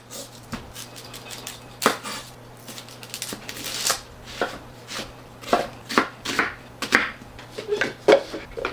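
Chef's knife slicing through a raw onion and knocking on a wooden cutting board, in irregular strokes a second or so apart.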